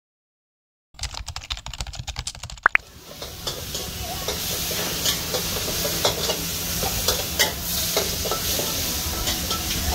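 Rapid keyboard-typing clicks for just under two seconds, ended by a short rising tone. Then a wok sizzles steadily as pad thai is stir-fried, with a metal spatula scraping and clinking against the pan.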